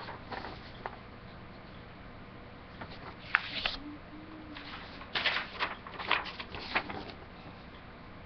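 A sheet of paper rustling and being handled, in short crackly bursts about three seconds in and again from about five to seven seconds in.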